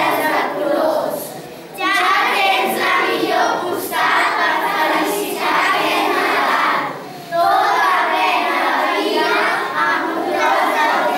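A class of young children singing together as a choir, with brief pauses between phrases.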